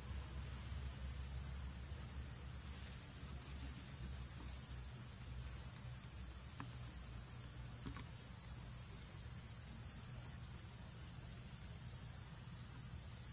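Insects calling: a steady high drone with a short rising chirp repeating about once a second, over a low rumble that eases after the first few seconds.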